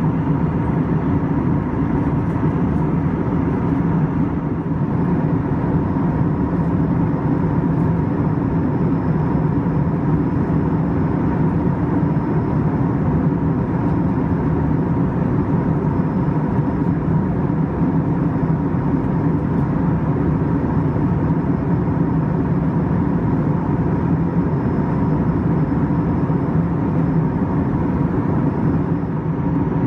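Steady cabin noise of an Airbus A321-231 airliner in flight, with its IAE V2500 turbofan engines and airflow, heard from a window seat. A constant low rush with a faint steady whine.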